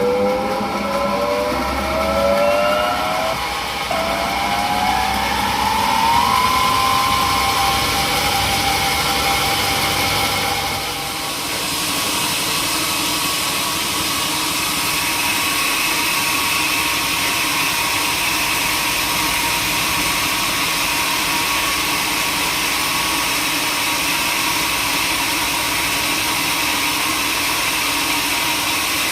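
Sawmill saw machinery speeding up, its pitch rising steadily over the first several seconds, then running at a steady speed. About eleven seconds in, the sound turns to a dense, noisy rush that holds steady as the saw cuts wood.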